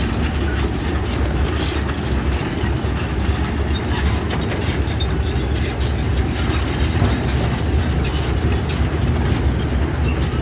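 Heavy earthmoving machinery running steadily, with a low engine drone under a dense mechanical clatter that keeps an even level throughout.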